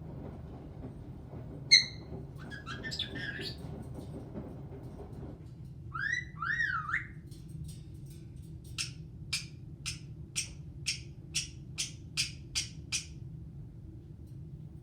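Caique parrot calling: a sharp squeak about two seconds in, a little whistled chatter, a pair of quick rising-and-falling whistles, then a run of about ten short chirps, two a second.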